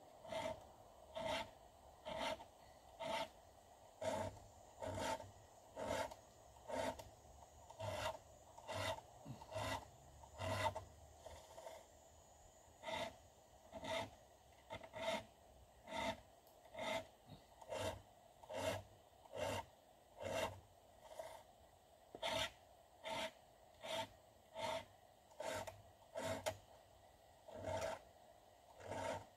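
A 7/32-inch round file pushed across a chainsaw chain's cutter teeth, one rasping stroke a little more than once a second, with brief pauses now and then as the file moves to the next tooth.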